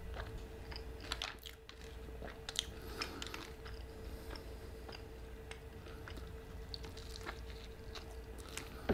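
Close-miked eating of a Flamin' Hot Cheetos-crusted sope: faint, scattered crunches and chewing clicks, with a bite into it near the end. A faint steady hum runs underneath.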